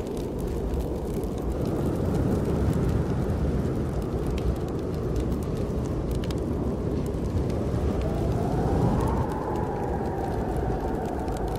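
Snowstorm wind blowing in a steady low rush, with a whistling howl that rises about two-thirds of the way through and then slowly falls. A fire crackles over it with scattered small pops.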